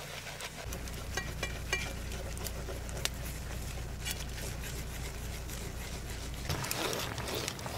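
Liquid poured from a small pan into a hot frying pan over a wood fire and stirred with a wooden spatula scraping the pan, with scattered sharp crackles throughout.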